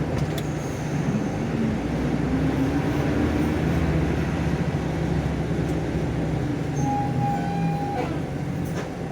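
Intercity bus engine droning steadily under road and tyre noise, heard from inside the cabin, its pitch drifting slightly as it drives.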